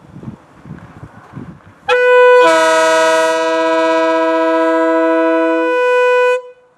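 Nathan K-series multi-chime locomotive air horn blown for about four and a half seconds, with a mellow sound. One chime sounds first, the others join about half a second later as a chord, and near the end they drop out one by one.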